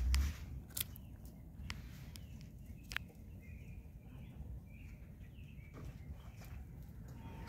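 Quiet outdoor ambience with a few sharp clicks in the first three seconds, then a string of faint bird chirps in the middle.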